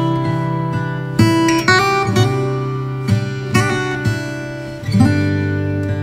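Background music: an acoustic guitar strumming a series of chords, each change struck sharply and left to ring.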